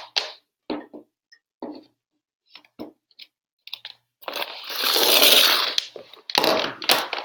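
Handling noise: scattered clicks and knocks, with a loud rustling scrape lasting about two seconds near the middle.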